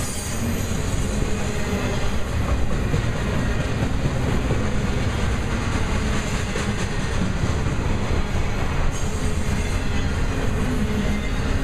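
Union Pacific intermodal freight train's trailer-carrying flatcars rolling past, a steady rumble of steel wheels on rail with some light clicking.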